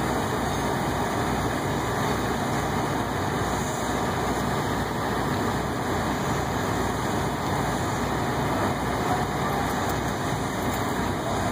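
Heavy diesel machinery running steadily, a constant low engine drone.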